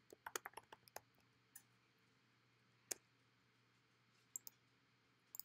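Faint computer keyboard typing: a quick run of keystrokes in the first second, then a few scattered key or mouse clicks, the loudest about three seconds in.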